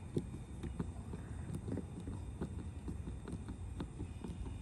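Hand screwdriver working a screw in a metal camera mounting bracket: a run of small, irregular clicks and taps, about three or four a second, over a steady low rumble.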